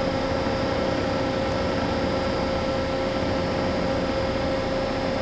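Toyoda GL5A-63II CNC OD cylindrical grinder running under power with its work head spinning: a steady machine hum with a constant mid-pitched tone over it.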